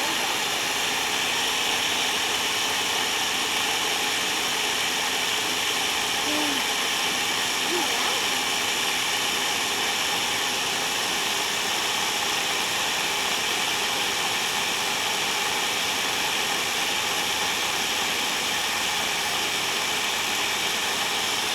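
Blender motor running steadily at one speed, blending cicadas into a smoothie.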